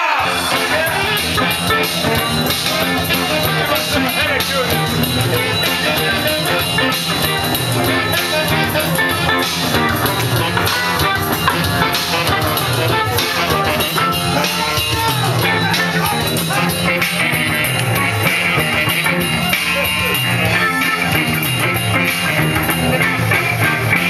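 Live rock band playing loud dance music with electric guitar and drums.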